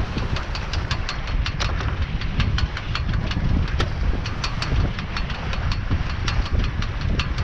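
Wind rumbling on the microphone and water rushing along the hull of a small sailboat under way, with a steady run of sharp ticks, about four a second, from the rigging: a halyard slapping the aluminium mast.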